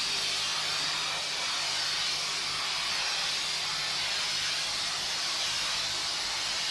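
Two-part spray foam gun spraying polyurethane foam insulation, a steady loud hiss.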